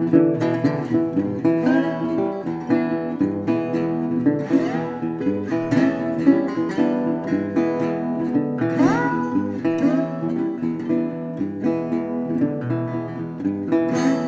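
Background music led by acoustic guitar, plucked and strummed notes with a steady pulse, and several notes sliding upward in pitch.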